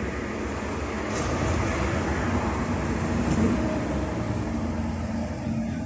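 Steady low mechanical rumble, swelling slightly in the middle and easing toward the end.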